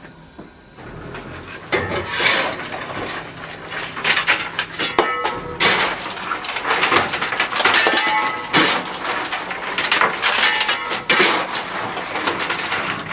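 Steel coal shovel scraping along the steel deck plate and digging into loose coal: a run of gritty scrapes and clanks every second or two, some with a short metallic ring. This is a fireman shovelling coal to fire a steam locomotive.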